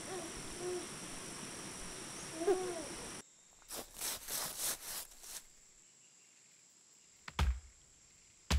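An infant cooing and babbling in short rising-and-falling sounds over a steady hiss for the first three seconds. This is followed by a run of rustling swishes, then two sharp chops with a low thud, about a second apart near the end, like an axe striking a tree trunk.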